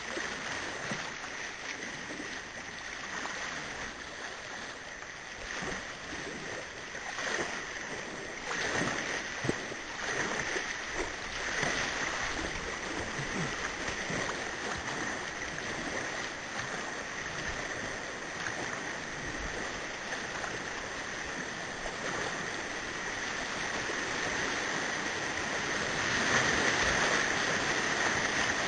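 River rapids in high flood: a steady rush of whitewater with sudden louder splashes, getting louder near the end.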